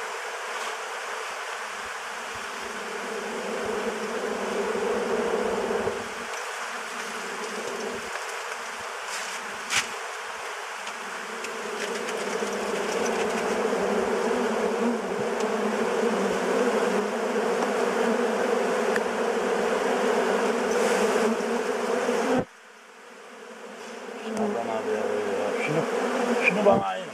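Honeybees swarming and buzzing around an open hive, a dense steady drone that grows louder through the middle. The buzz drops away abruptly a little after twenty seconds, then builds back more faintly.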